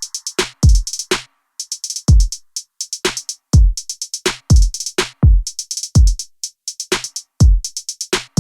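Background music: an electronic drum-machine beat of deep kicks about twice a second with crisp hi-hat ticks between them.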